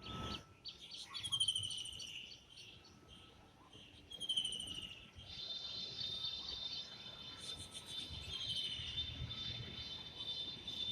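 Kingfisher calling: three descending trilled calls, about three seconds apart. From about halfway through, a steady high insect drone runs underneath.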